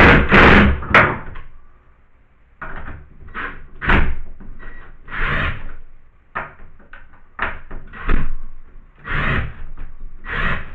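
Irregular knocks, clunks and scrapes, a dozen or so short bursts with gaps between them, as a used strip is worked into place and fixed with a screw.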